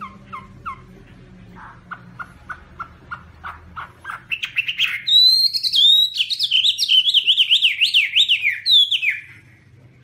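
Chinese hwamei (Garrulax canorus) singing. A run of short notes speeds up and grows louder over the first four seconds, then breaks into a loud, fast song of notes sliding up and down, which stops about a second before the end.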